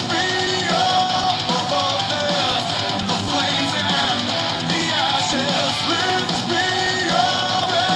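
Rock song with electric guitar and a singing voice, played back loud through a small portable Bluetooth speaker, the Sonic Gear Pandora Mini.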